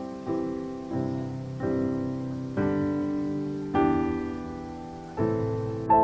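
Background piano music: slow chords struck about once a second, each left to ring and fade before the next.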